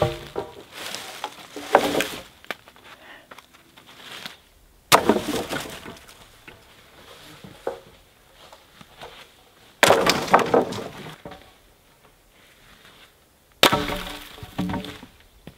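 Dry dead branches and sticks snapping and cracking, with sudden loud breaks about five seconds in, about ten seconds in and near the end, each trailing off in a brief crackle of twigs.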